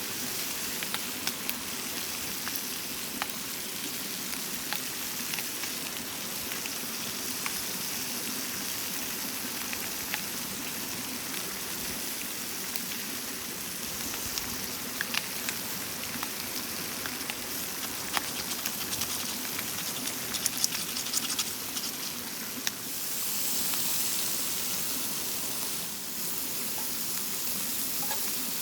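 Food frying in a pan: a steady sizzle with frequent small pops and crackles. The hiss swells for a few seconds near the end.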